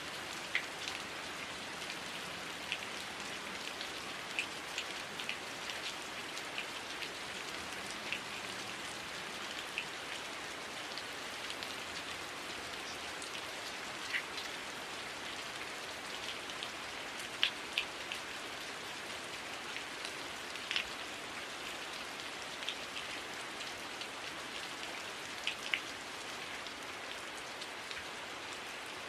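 Steady heavy rain, an even hiss with scattered louder drops ticking on near surfaces.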